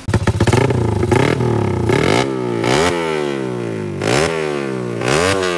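Small motorcycle engine revved hard and rough for about two seconds, then blipped about three times, each rev climbing sharply and winding slowly back down.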